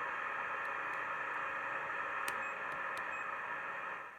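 Steady static hiss from a loudspeaker driven by a car stereo's newly replaced TDA7388 amplifier IC, fading away near the end as the volume is turned down: a sign that the amplifier works after the repair.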